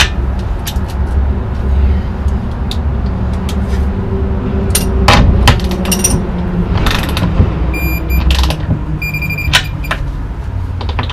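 Hand-tool work on the trailer's underside: scattered sharp metal clicks and knocks from a wrench on a floor bolt, with two short high metallic rings about 8 and 9 seconds in. A steady low rumble runs underneath and eases near the end.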